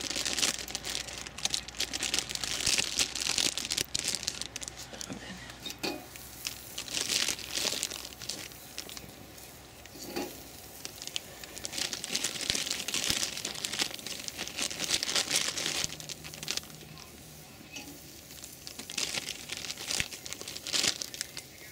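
A plastic food bag crinkling in several bursts as oiled butternut squash slices are lifted out with metal tongs and laid on a grill over a wood fire, which sizzles faintly between them.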